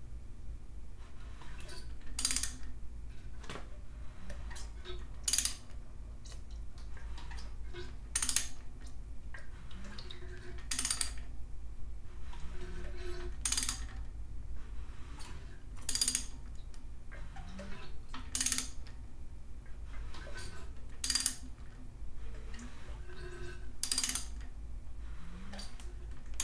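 Socket wrench on an LS V8's crankshaft bolt as the engine is turned over by hand in short strokes. A sharp metallic click comes about every two and a half seconds, with lighter ticks and knocks between. The crank is being rotated during oil priming so that pressurised oil reaches the rest of the valvetrain.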